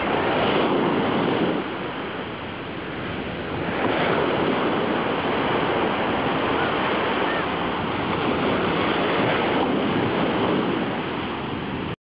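Small ocean waves breaking and washing up a sandy beach: a steady rushing surf that eases a little about two seconds in and swells again at about four seconds.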